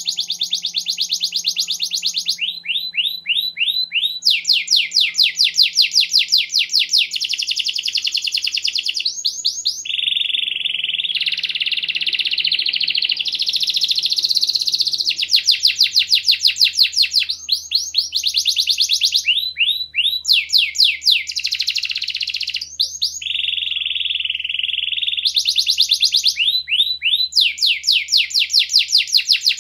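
Domestic canary singing one long, unbroken song of fast, high-pitched trills and rolls, switching from one trill to the next every second or two, with a few held buzzy phrases between them.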